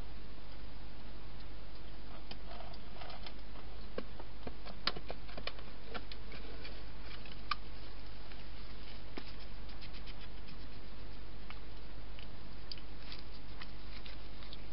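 Wild European hedgehog eating and moving about at a feeding box and through grass: irregular small clicks and crackles, thickest in the first half, over a steady background hiss and low hum.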